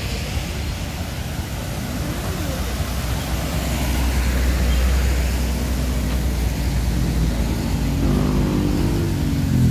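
Street traffic: a low engine rumble that swells around the middle, then a passing motor vehicle's engine whose pitch rises and falls near the end.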